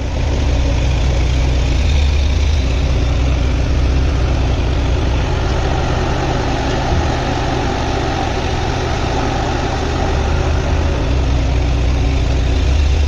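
Tata Hitachi excavator's diesel engine running steadily with a deep, even drone.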